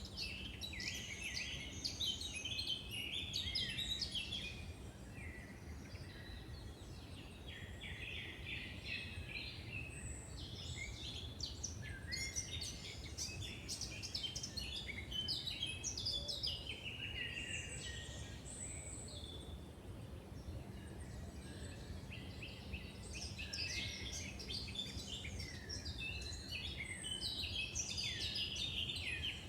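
Several birds singing and calling over each other in a woodland chorus, in dense overlapping phrases that come and go, over a steady low background rumble.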